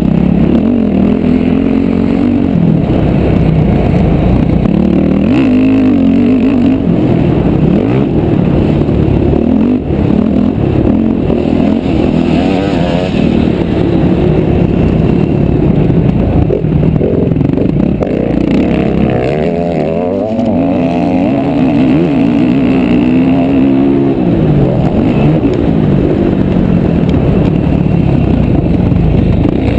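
Motocross bike engine heard from a camera mounted on the bike, revving hard, its pitch rising and falling over and over as the rider accelerates and backs off around a dirt track.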